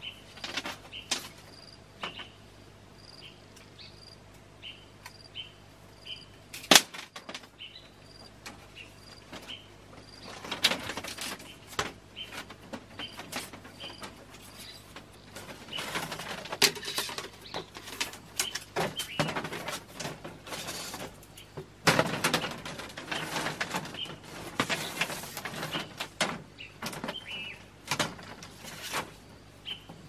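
Thin bamboo strips clacking, rustling and scraping against each other and the slatted bamboo floor as they are bent and woven into a chicken coop, with one sharp crack about seven seconds in. Short repeated bird chirps sound over the first ten seconds or so.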